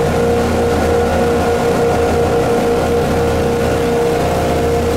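A houseboat's engines running steadily under way, a constant drone with the wake churning and rushing behind the stern.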